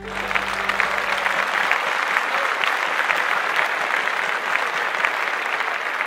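Audience applause breaking out suddenly as the song ends, dense clapping that carries on steadily, with the last low chord of the backing track fading under it in the first two seconds.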